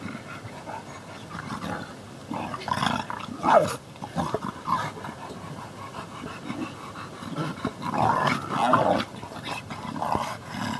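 A dog and white tiger and lion cubs play-fighting, with growls and short yelps coming in irregular bursts, loudest about three seconds in and again near eight seconds in.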